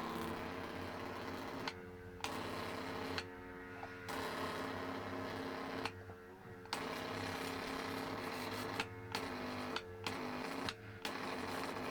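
High-voltage arc from a microwave oven transformer buzzing between the probes in about six bursts of one to two seconds each, with the transformer humming in the short gaps between them.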